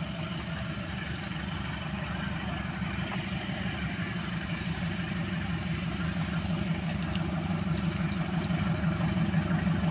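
Diesel-electric locomotive engine running steadily, growing louder as the locomotive hauling the passenger train approaches.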